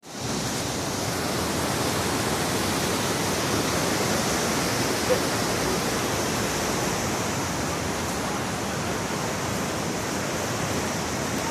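Floodwater in a swollen river rushing past in a steady, unbroken roar of fast-flowing water. A single brief knock about five seconds in.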